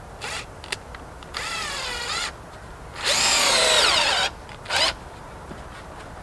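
Power drill driving screws into pallet wood. It runs in two main spells, the second louder and longer, with the motor pitch falling as each screw bites, and two short bursts before and after.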